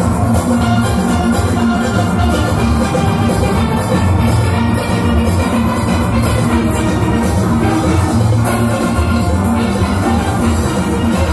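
A full steel orchestra of about 75 players playing live: many steelpans over a drum kit and percussion, with a steady driving beat.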